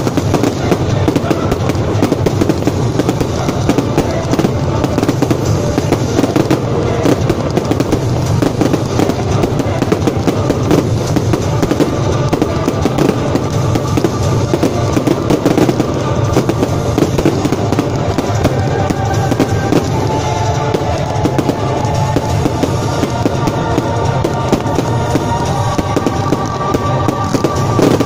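Fireworks barrage: an unbroken run of rapid bangs, launches and crackling from aerial shells and ground fountains going off together. Music plays underneath, with steady tones coming through more clearly in the second half.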